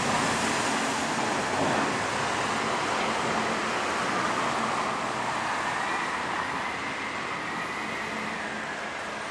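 Steady rushing noise like road traffic, slowly fading over the last few seconds, with a faint wavering whine in the second half.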